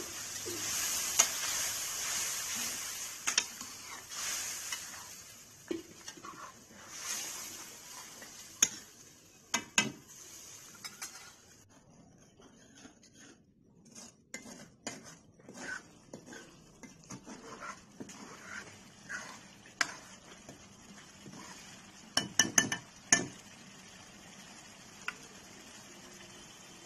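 Onion-tomato masala sizzling in a metal kadhai just after water has been added, the hiss strong at first and dying down over about ten seconds. A ladle stirs and clinks against the pan throughout, with a quick run of knocks a little before the end.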